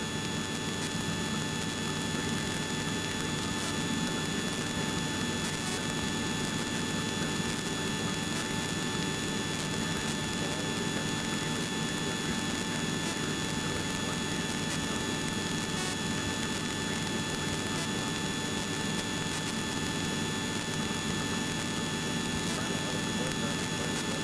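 Helicopter in flight heard from inside the cabin: steady engine and rotor noise with a thin, constant high whine.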